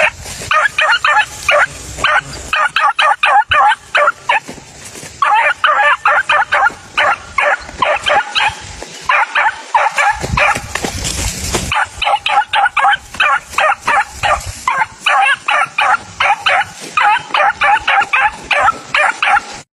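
Young hunting dog yelping rapidly and almost without pause, about four high yelps a second with a few short breaks, giving chase on an armadillo. Wind rumbles on the microphone briefly about halfway through.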